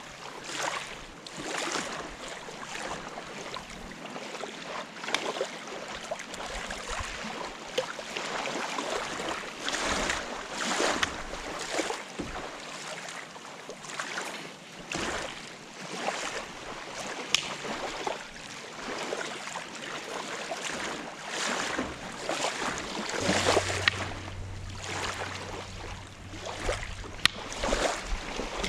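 Small waves washing against a gravel shore in uneven swells, with wind. A low steady hum comes in for a few seconds near the end.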